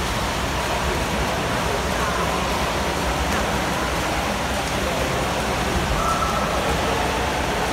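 Swimmers splashing in an indoor pool hall: a steady wash of water noise, with indistinct voices in the background.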